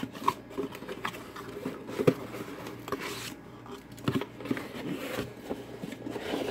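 Cardboard box being opened by hand: flaps pulled back with rustling and scraping, and a few light knocks, sharpest about two seconds and four seconds in.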